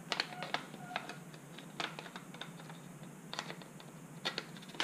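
About a dozen irregular small clicks and taps of polymer and metal gun parts being handled and fitted together as a Sig P320 fire control unit is assembled into a PDW chassis.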